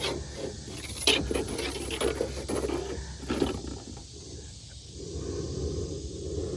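A metal conduit anchor pole being handled and set down through its bracket: a handful of sharp knocks and scrapes in the first three and a half seconds, over a steady low rumble.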